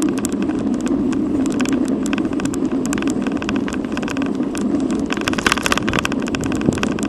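Bicycle rolling along an asphalt road heard from a bike-mounted camera: steady wind and road noise with frequent irregular rattling clicks.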